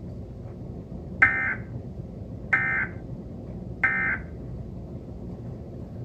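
Emergency Alert System end-of-message data signal: three short, identical buzzy warbling bursts about 1.3 s apart, the SAME digital code that closes a broadcast EAS alert. Played through a television speaker.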